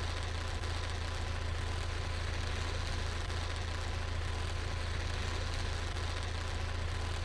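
High-voltage overhead power lines buzzing from corona discharge: a steady low electrical hum with an even hissing crackle over it.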